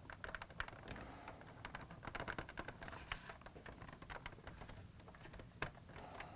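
Faint, irregular clicks and scrapes of hard plastic as the plastic door of a Kenner Knight 2000 toy car is worked into its clips, with a brief cluster of clicks about two seconds in.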